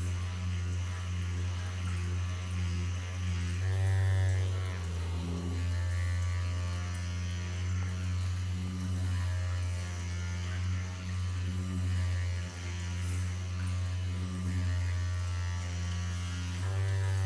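Handheld electric massage device running with a steady low hum and buzzing overtones, used to loosen tense muscles. Its pitch shifts briefly about four seconds in and again near the end.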